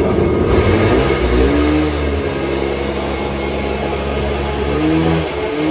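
Kawasaki 650 engine of a small homemade aluminium jet boat running at speed, with the rush of water and wind. The engine pitch climbs over the first second or two, holds steady, then rises and dips briefly near the end.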